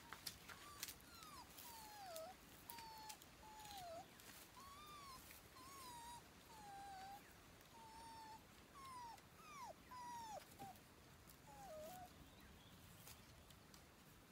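A dog whimpering: a string of about fifteen short, high whines, most sliding down in pitch, with brief gaps between them.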